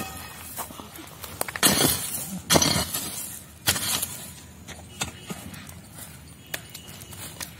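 A pickaxe striking into dry, stony earth three times, each blow a short, loud crunching impact about a second apart, followed by a few lighter knocks and scrapes of loosened soil and stones.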